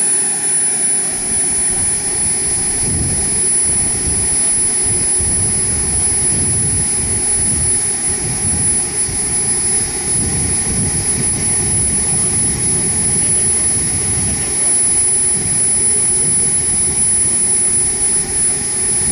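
Small gas turbine of a model jet (Evojet 90) running steadily while the jet stands still: a constant high whine over an uneven low rushing noise.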